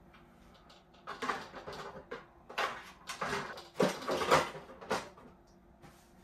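Plastic rustling, knocking and clattering as the hard plastic body shell of a 1/8-scale RC car is lowered and pressed onto its chassis, a run of irregular knocks loudest about four seconds in.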